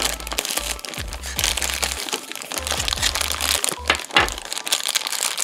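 Clear plastic bag crinkling and crackling as hands open it and take parts out, with music playing underneath.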